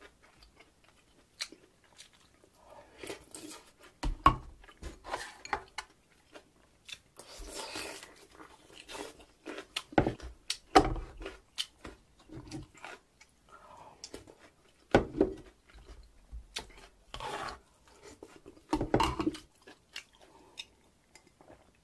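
Close-miked eating sounds: a metal ladle scraping the last rice and broth of pork-bone soup from an earthenware pot, with slurping and chewing in irregular bursts. Gulps of water from a glass near the end.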